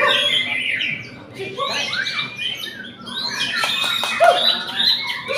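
White-rumped shama (murai batu) singing fast, varied phrases of whistles and harsh chatter, with other caged songbirds singing over it at the same time.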